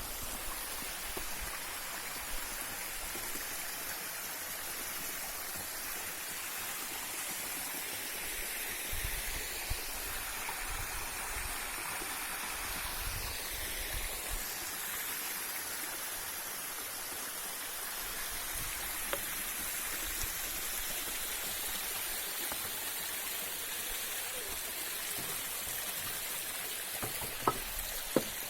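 Steady rush of running water in a mountain stream, with a few sharp clicks just before the end.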